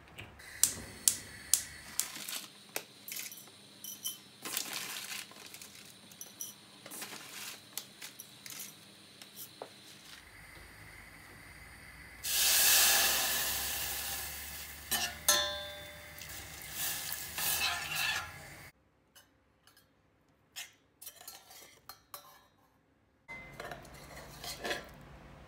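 Cooking with a stainless steel saucepan on a gas stove: clinks and knocks of pan and utensil, then, about 12 s in, a sudden loud sizzling hiss as oats toast in the pan, fading over a few seconds and followed by stirring clinks. Near the end come more knocks as the pan is handled.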